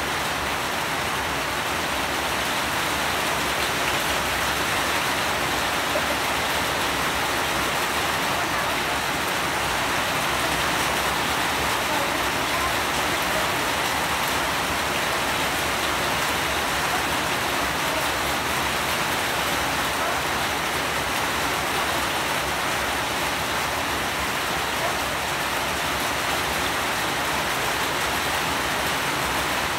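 Steady rain falling: an even, unbroken hiss that keeps the same level throughout.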